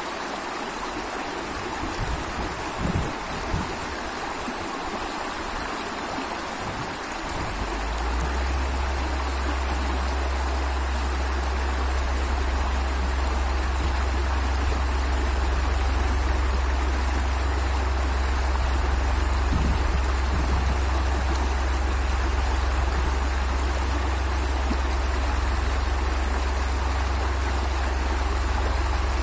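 River water rushing steadily over shallow rapids. About a quarter of the way in, a steady deep rumble joins and stays to the end, sitting under the water sound.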